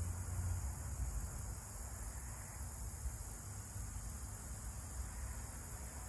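Crickets trilling steadily at a high pitch, over a low rumble.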